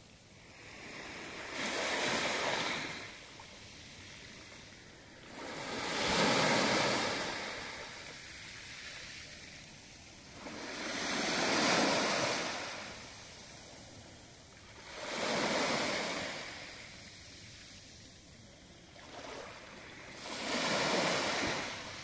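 Small waves breaking and washing up a pebble beach, five times, about every four to five seconds, each rising and fading away.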